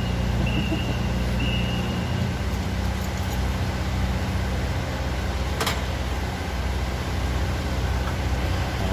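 Deutz TCD 2011 L04 four-cylinder diesel engine running steadily while misfiring, with cylinders 2 and 3 not firing properly. Intermittent high beeping sounds during the first two seconds, and a single sharp click comes about six seconds in.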